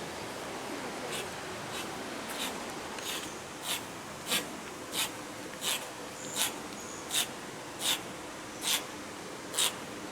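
Domestic cat sneezing over and over in a steady run, short sharp hissy sneezes about one every second or a little faster, louder from about a third of the way in; odd sneezes.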